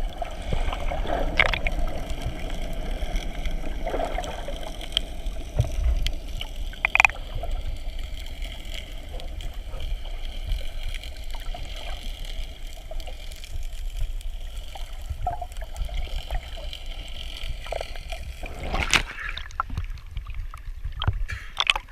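Muffled water noise picked up by a camera submerged in the sea: a steady low rumble with gurgling, and now and then a sharp click or pop.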